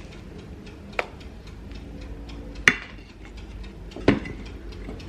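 A metal spoon knocking three times against a stainless steel mixing bowl while beaten egg whites are scooped into chocolate batter; the middle knock is the loudest, with a brief ring.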